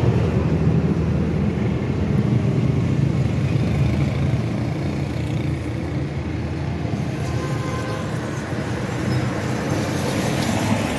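A vehicle engine running steadily at idle, an even low hum with no revving.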